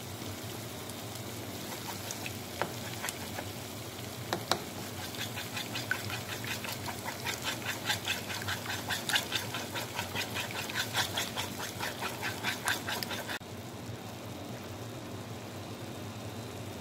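A slotted spatula stirring and scrambling eggs into cooking tomatoes in a frying pan. A few taps come first, then quick scraping strokes, several a second, which stop abruptly. A steady low hum runs underneath.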